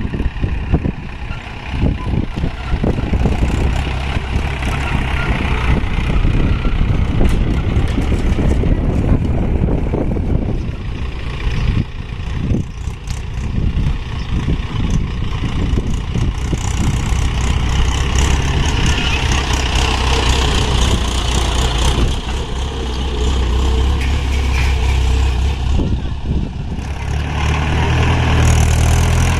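Heavy diesel engines of earthmoving and haulage machinery running steadily. Short knocks and clatter come through in the first half, and a deeper, stronger engine note builds near the end.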